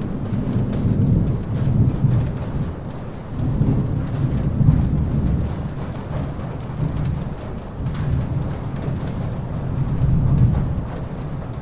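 Steady rain falling in a forest, with low rolling thunder rumbling in several swells: strongest in the first two seconds, again around the middle of the first half, and near the end.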